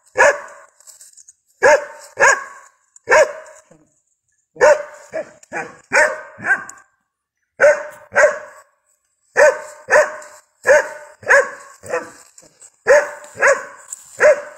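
Cadaver dog barking repeatedly: about twenty sharp barks in quick runs of two to four, with short pauses between the runs.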